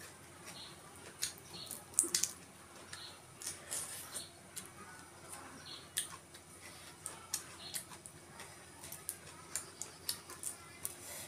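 Boiled shrimp shells being peeled by hand: irregular small cracks and crackles, with the sharpest snaps about two seconds in.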